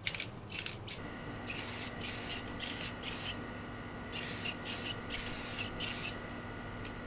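Aerosol spray paint can hissing in short bursts: a few quick puffs in the first second, then about seven sprays of half a second or so each, in two groups, stopping about six seconds in.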